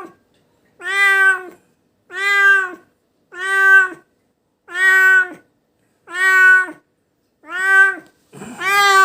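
Domestic cat meowing over and over, a drawn-out cry about every second and a bit, each meow alike in pitch and dropping at the end: crying in pain after being bitten by a venomous animal.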